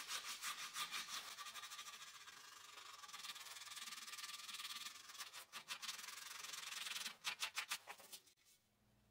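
Hand sanding along the carved spiral groove of a cherry walking stick: a faint rasp of quick back-and-forth strokes, which stops shortly before the end.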